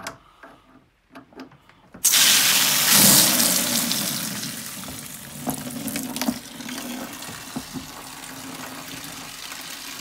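Central heating system water let out through the drain valve of a Fernox magnetic system filter, splashing into a plastic tub as the system pressure is released. A few small clicks as the valve is worked open, then about two seconds in a sudden loud rush of water that gradually eases into a steadier splashing stream.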